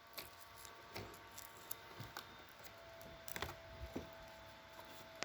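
Faint handling noise of an RC model plane's battery and Velcro: scattered small clicks and rustles, with a short run of louder clicks about three and a half seconds in. A faint steady high tone begins about three seconds in.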